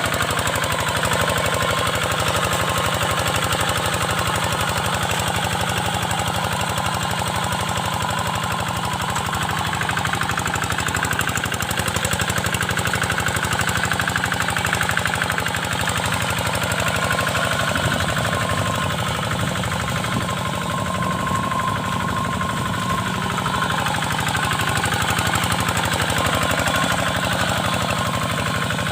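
Kubota single-cylinder diesel engine of a two-wheel hand tractor running steadily with a rapid knocking beat while pulling a moldboard plough through a wet paddy field.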